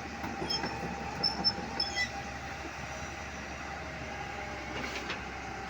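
Heavy machinery running with a steady drone, with a few short, high-pitched metallic squeaks between about half a second and two seconds in.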